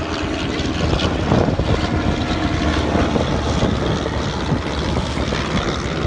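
Propeller engines of vintage biplanes flying past low, a steady drone of piston engines.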